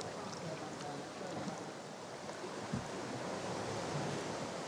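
Sea swell surging through a rocky gully and pouring back out as foaming, fizzing white water, with one dull low thump about three seconds in.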